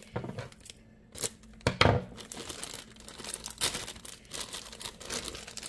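Thin clear plastic bag crinkling and tearing as it is pulled open by hand, in irregular crackles, loudest about two seconds in.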